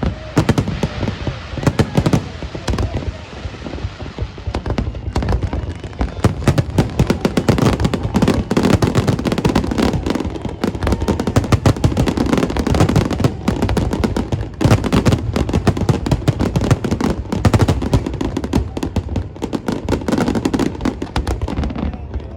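Fireworks display: a dense, continuous run of bangs, many shells bursting close together with hardly a pause.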